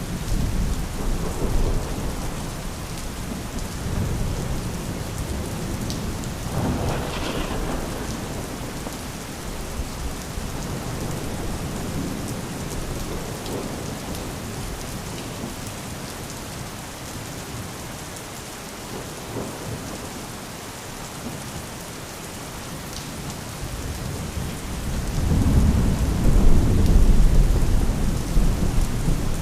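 Steady rain falling, with distant thunder rumbling low underneath. A brighter rumble comes about seven seconds in, and a longer, louder roll of thunder comes near the end.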